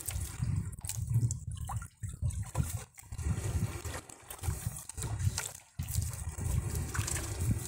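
Water dripping and splashing off a wet fishing net, with fish meshed in it, as it is hauled hand over hand into a wooden boat, with short crackles and drips throughout. An uneven low rumble comes and goes underneath.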